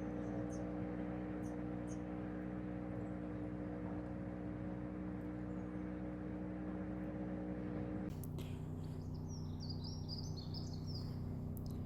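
A steady low hum of several held tones. About eight seconds in it changes abruptly to a lower hum, and small birds chirp rapidly over it for a few seconds.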